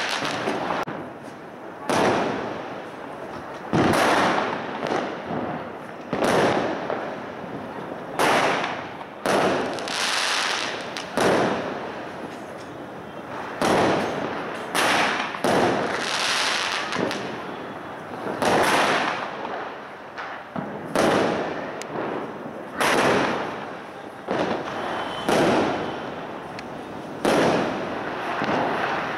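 Aerial fireworks bursting one after another, a sharp bang about every one to two seconds, each trailing off before the next.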